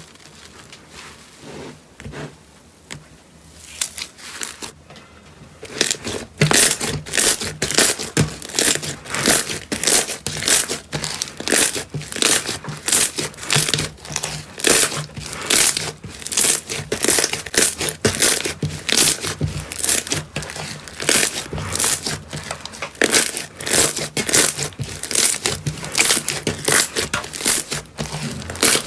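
Slime being squeezed and pressed by hand, giving repeated crackling, squishing pops, about two or three a second, which start after a few quieter seconds.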